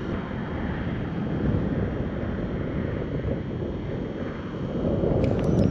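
Wind buffeting the microphone: a steady low rushing noise that gets louder near the end, with a few faint ticks just before it ends.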